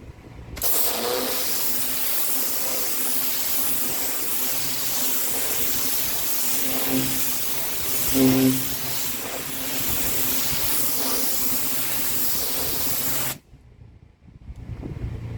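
Pressure washer lance spraying water at high pressure onto concrete: a steady hiss that starts about half a second in and cuts off suddenly near the end as the trigger is released, with the washer's engine humming faintly underneath.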